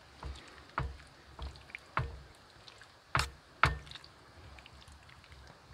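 A metal spoon stirring soup in a large stainless steel pot, clanking against the pot's side about six times, the two loudest knocks a little after three seconds in.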